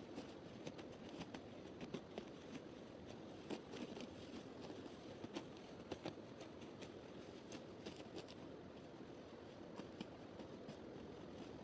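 Hand sickle cutting grass: irregular snips and rustles as the blade slices through stalks, several a second at times, fairly faint.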